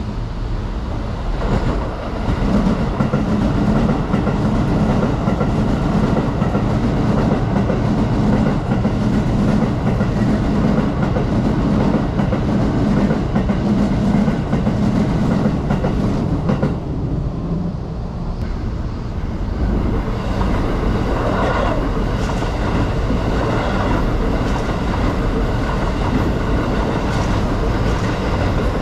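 Commuter electric trains passing along the tracks, wheels clattering on the rails with a heavy rumble. The first train runs for about fourteen seconds. After a short lull a second train follows, with a steady motor whine over its running noise.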